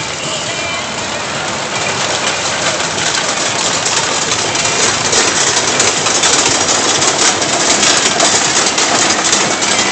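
Small dragon-themed kiddie roller coaster train rolling along its track with a steady rattling noise that grows louder as the cars pass close by.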